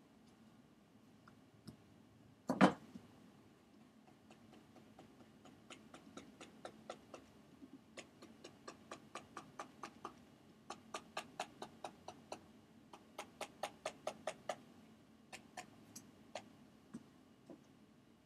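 Computer mouse clicking in quick runs of about three clicks a second, placing points with Photoshop's Lasso Tool, with one louder knock shortly before the runs start.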